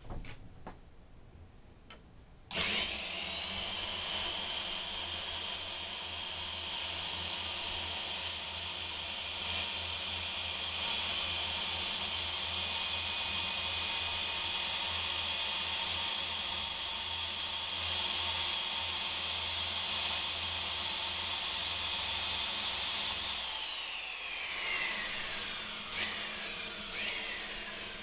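Electric drill spinning a square wooden stick through a homemade dowel-making jig, its carbide saw-blade tips shaving the wood down to an 8 mm round dowel. It starts about two and a half seconds in and runs steadily, then the drill's whine falls as it winds down near the end, followed by a couple of sharp clicks.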